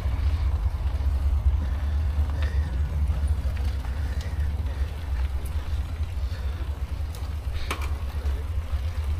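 Steady low rumble of a ride on a bicycle, with faint voices in the background and one sharp click near the end.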